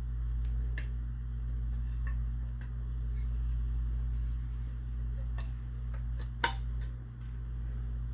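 A few light, sharp clicks of shotgun parts being handled and fitted, spaced a second or more apart with the loudest near the end, over a steady low hum.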